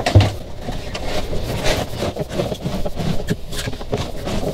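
Bundle of heavy 2-gauge battery cables rubbing and scraping against the boat's fiberglass as it is pushed by hand into the cable tunnel under the console, with irregular knocks and rustles and a louder thump right at the start.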